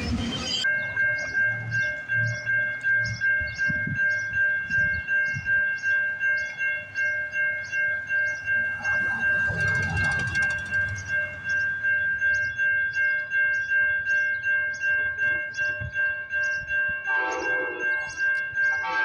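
A railroad warning bell rings steadily, about two and a half strokes a second, as a passenger train approaches. Short train horn blasts sound near the end.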